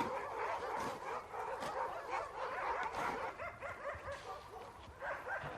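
A group of dogs whining and yipping at once, many short high cries overlapping into a continuous clamour.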